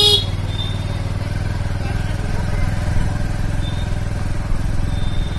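Motorcycle engine running steadily while riding at low speed. A short horn beep right at the start.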